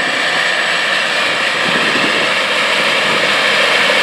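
John Deere 8850's V8 diesel engine working under load as the big four-wheel-drive tractor pulls tillage, a steady engine drone growing slightly louder as it approaches.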